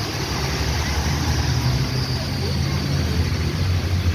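Steady rain on a wet street, with motor vehicles driving past through the water: a bus's engine rumble and the hiss of tyres on the wet road, the rumble growing louder near the end as a van passes.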